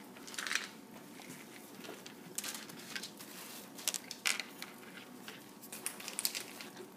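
Cats chewing dry cat treats: irregular short crunches and clicks.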